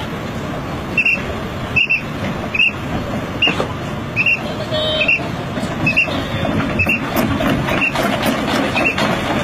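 Red crawler mini excavators running their engines and travelling down a trailer ramp, over a steady rumble. A short high beep repeats a little faster than once a second: the machine's travel alarm.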